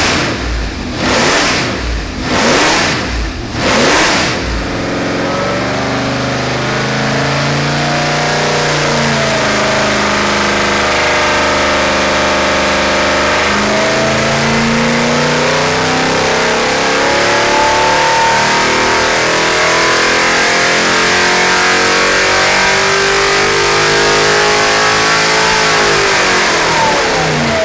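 Holden 308 V8 running on an engine dyno with a four-barrel carburettor on a 2-inch spacer. It is blipped three times, then runs steadily, then climbs in revs over about twelve seconds in a dyno power pull. The revs drop sharply near the end as the throttle closes.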